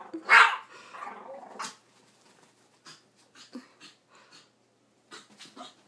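A Chihuahua barks sharply once about half a second in at its own reflection in a mirror, followed by quieter dog sounds and scattered faint clicks.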